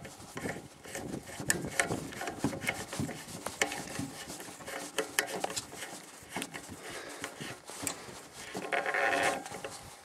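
Brass garden-hose connector being screwed by hand onto a threaded fitting: small scraping and clicking of metal threads and fingers against the fitting, repeated throughout.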